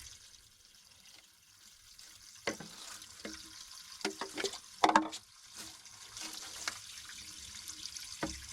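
Artesian well water running out in a steady hiss, with several knocks and clatters of pipe and fittings being handled and fitted together. The loudest knock comes about five seconds in.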